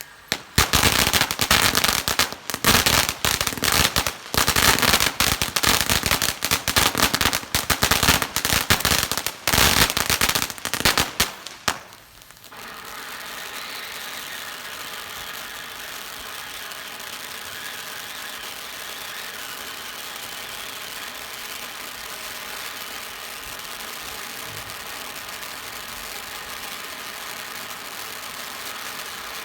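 Ground fountain fireworks going off: about eleven seconds of dense, loud crackling, then a dip and a steady hiss for the rest.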